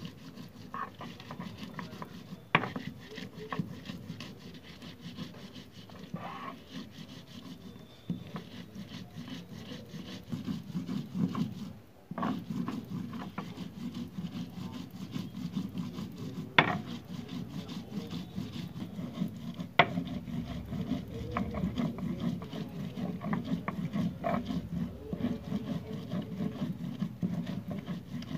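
Stone roller of a sil batta grinding stone rubbing and rocking back and forth over the wet stone slab, crushing green chillies and garlic into a coarse paste: a continuous rapid scraping with a few sharper knocks, and a brief pause about twelve seconds in.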